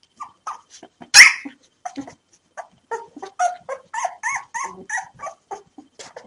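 Several three-day-old Rafeiro do Alentejo (Portuguese Mastiff) puppies crying in many short calls, one loud call a bit over a second in, then a quick run of cries: newborn pups waiting to be fed.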